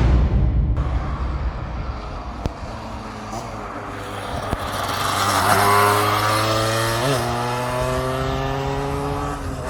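Motorcycle engine and exhaust, loud at first, then its note climbing steadily as it accelerates over the last few seconds before cutting off.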